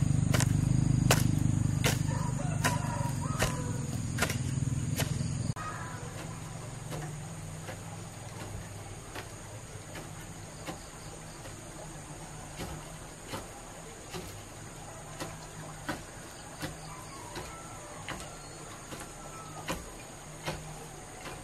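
Hoe blade striking soil again and again, a sharp chop about every second, over a steady high insect buzz. A loud low rumble lies under the first five seconds and cuts off suddenly.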